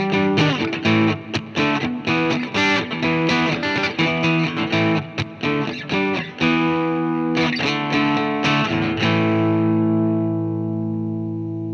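Squier Affinity Telecaster electric guitar played through a Marshall MG30 amp with a Rat distortion pedal: a run of short, rhythmic distorted chord stabs. About nine seconds in, a final chord is held and rings out, slowly fading.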